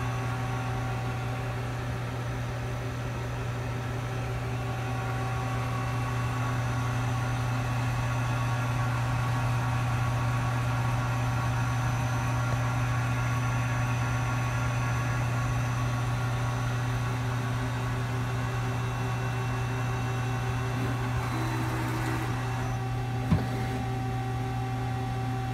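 Hyundai Hit-160M CNC lathe running: a steady low hum with several steady whine tones above it. One sharp click comes near the end.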